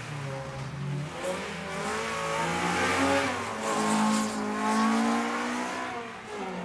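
Race car engines at full throttle: a car accelerates hard past and away along the straight, its engine note climbing and loudest about four seconds in, then fading near the end.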